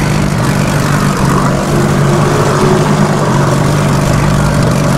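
Dinghy's outboard motor running steadily with an even low hum.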